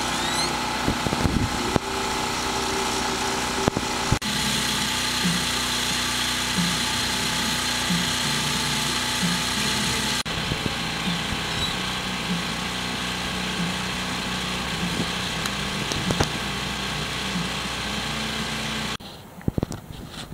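Portable generator engine running steadily, charging the batteries, a constant hum with a faint repeating tick. It cuts off sharply near the end, leaving a much quieter background.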